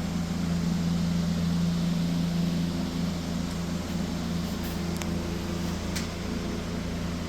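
A steady mechanical hum made of a few held low tones over a lower drone, with small wavers about three to four seconds in.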